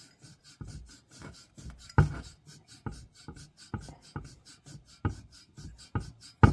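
A valve being lapped by hand into its seat in a Kawasaki FB460V engine's cylinder head: gritty rasping strokes about twice a second as the valve is twisted back and forth, the loudest about 2 seconds in. This grinds the seat to a shiny, even ring.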